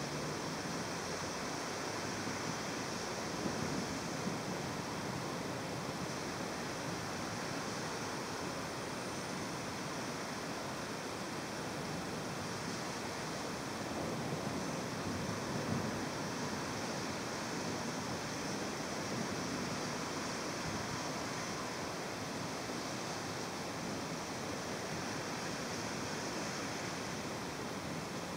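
Heavy rain from a thunderstorm downpour falling steadily, an even hiss.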